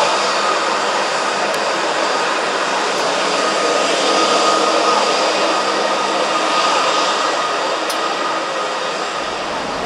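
Jet engines of a taxiing Airbus A320 running at low power: a steady whine and hiss with one high tone held throughout, easing off slightly near the end.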